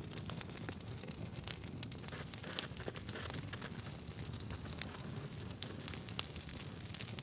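Campfire logs burning, with irregular sharp crackles and pops over a low steady rumble of the flames.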